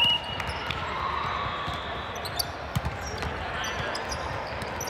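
Busy volleyball gym ambience: scattered sharp thuds of balls being hit and bounced, over a background of distant voices in the hall.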